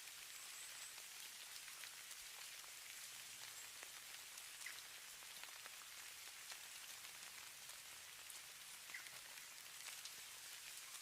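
Faint, steady hiss of falling snow, dotted with light ticks, and two brief faint high chirps about five and nine seconds in.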